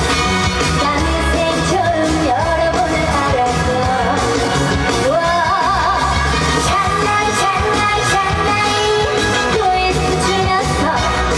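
A female trot singer singing live with vibrato over upbeat trot accompaniment with a steady beat.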